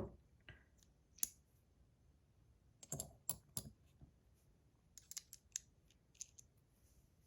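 Small clicks and taps of a metal fidget spinner and its buttons being handled, coming singly and in little groups of two or three with pauses between.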